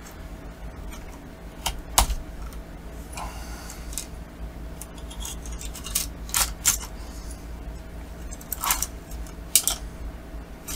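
Clicks, taps and short scrapes of an MSI GS60 laptop's plastic and metal parts being worked loose and handled during teardown, as its motherboard assembly is freed and lifted out of the chassis. A sharp knock about two seconds in is the loudest, and a cluster of clicks comes a little past halfway.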